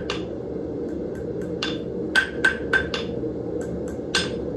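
Blacksmith's hand hammer striking hot steel on an anvil while shaping a shepherd's hook: about a dozen ringing metallic blows in quick groups, roughly three a second, each with a bright ring. A steady low hum runs underneath.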